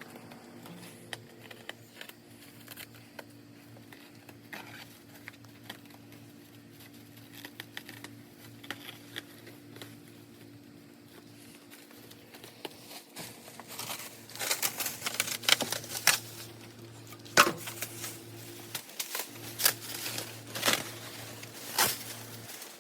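Protective plastic wrapping being cut and pulled off, crinkling and tearing with scattered clicks. In the last third it gets louder, with a run of sharp crackles and rips.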